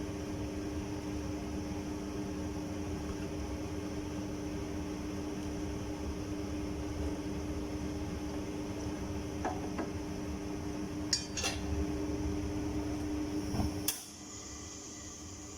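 Steady hum with a low rumble from a running kitchen appliance while a pot of water heats toward the boil, with a few light clinks of cookware in the second half. The hum cuts off suddenly about a second and a half before the end.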